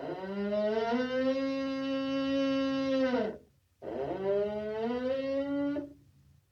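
Moose giving two long, drawn-out moaning calls, the second shorter. Each call rises slightly in pitch and falls away at the end.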